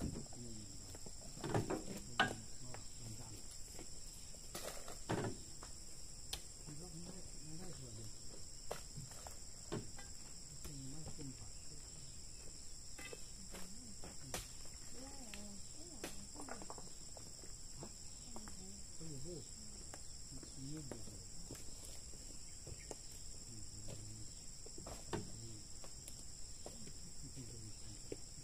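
Steady high-pitched chorus of insects droning without a break, with a few scattered knocks and clacks, the loudest about two and five seconds in.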